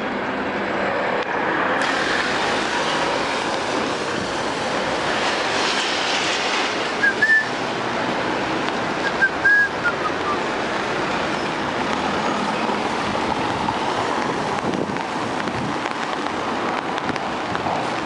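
Street traffic on a wet road: a steady hiss of tyres and engines. Two short high chirps stand out about seven and nine and a half seconds in.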